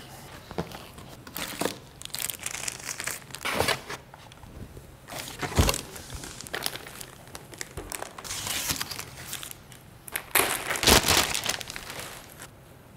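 Unboxing handling noise: a cardboard box and its packaging inserts being pulled open and a plastic-wrapped projector lifted out, with irregular rustling and plastic crinkling and a single knock about five and a half seconds in.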